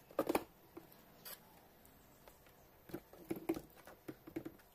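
Light knocks, taps and rattles of an FPV racing quadcopter's frame and propellers being picked up, turned over and set down on a cutting mat by hand, in short clusters near the start and again in the last second and a half.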